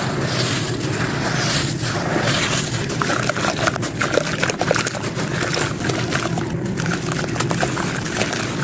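Chunks of sand-cement being crumbled and crushed by hand: a steady gritty crunching with many small crackles and snaps, densest from about three to six seconds in.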